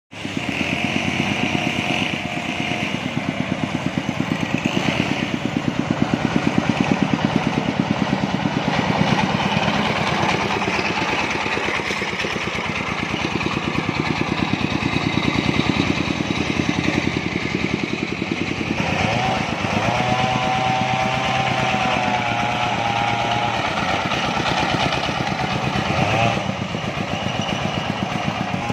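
Engine-driven portable sawmill running steadily while ripping timber, its engine firing in rapid, even pulses. A wavering higher tone joins for a few seconds about two-thirds of the way through.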